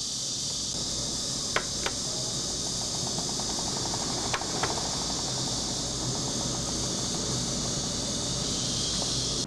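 Window air conditioner running in fan-only mode, its one motor driving both the indoor blower and the outdoor condenser fan: a steady whir with a high hiss and a low hum. A couple of light clicks come near the start and two more around the middle.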